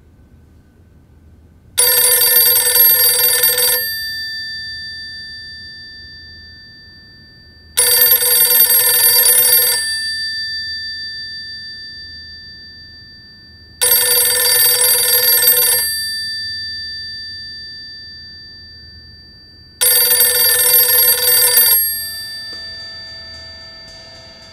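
Telephone bell ringing four times, each ring about two seconds long and about six seconds apart, the bell's tone dying away slowly after each ring.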